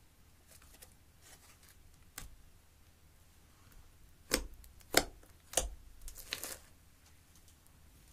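Fingers poking and pressing into a thick glossy slime, giving three sharp sticky pops about half a second apart, then a quick run of smaller crackles.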